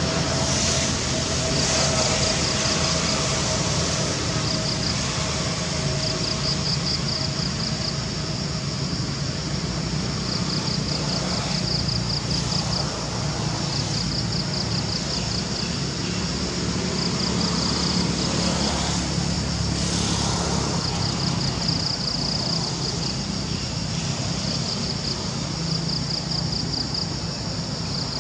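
Insects chirping outdoors in repeated short trains of rapid high pulses, one every second or two, over a steady low rumble.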